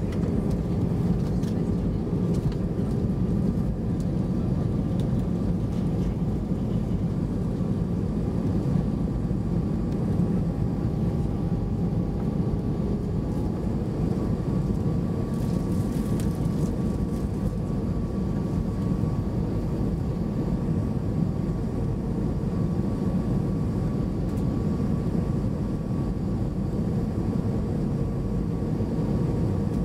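Steady low rumble inside the cabin of an Airbus A320-214 on approach: its CFM56 engines and the airflow, with faint steady whining tones over the drone.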